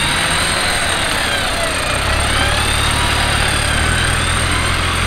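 Off-road vehicle engine running, a steady low drone that grows stronger about two seconds in, with a higher whine rising and falling above it.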